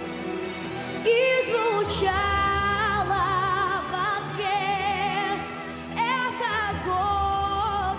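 A girl's solo voice singing long, wavering held notes into a microphone over backing music. The voice comes in about a second in, and a low bass joins about a second later.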